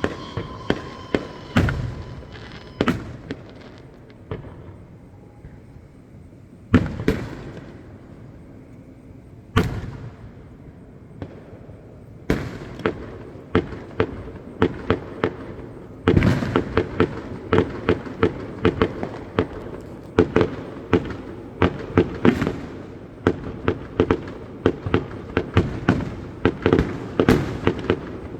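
Distant fireworks display: single shell bursts a few seconds apart, each ringing out afterwards, then from about halfway a rapid barrage of many bangs a second.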